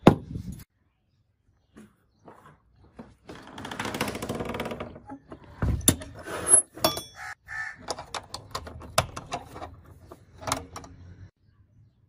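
Metal clicks and clanks of a door's steel barrel bolt and hasp being worked and a small padlock being handled and latched: a sharp click at the start, a rasping scrape about three to five seconds in, then a string of clicks. Two short harsh calls come about seven seconds in.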